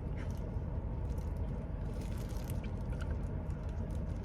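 A person chewing a mouthful of sticky rice: soft, wet mouth sounds with faint clicks, over a steady low hum.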